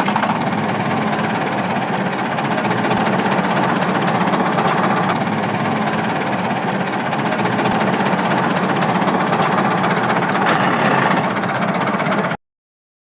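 Small motor running steadily under a dense mechanical noise, cut off abruptly near the end.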